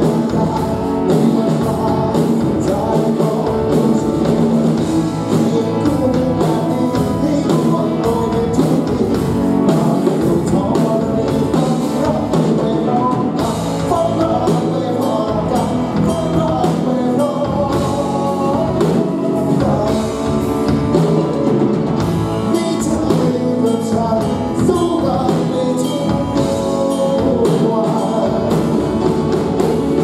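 Live rock band playing a song: a man sings into a microphone over electric guitar, bass guitar, drum kit and keyboard.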